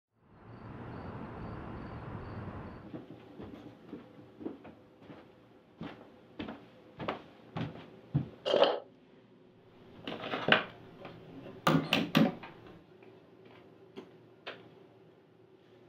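Small clicks, knocks and clatters of things handled at a bathroom sink, such as a toothbrush lifted from a plastic cup and set against the counter, with a cluster of sharper clacks about twelve seconds in. A steady hiss fills the first few seconds.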